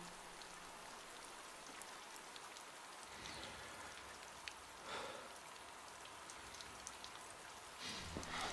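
Steady rain falling, heard faintly through an open doorway, with a brief soft sound about five seconds in.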